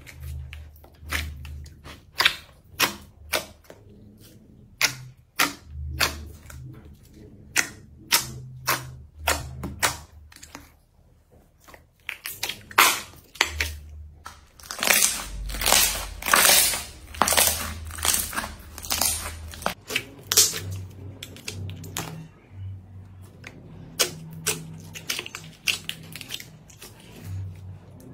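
Slime being squeezed and poked, giving a run of sharp clicks and pops, with a denser stretch of crackling about halfway through.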